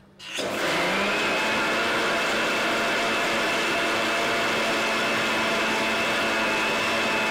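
Electric mixer-grinder blender starting up about half a second in, its motor rising to speed, then running steadily with a high whine as it purees mango pieces with milk and sugar.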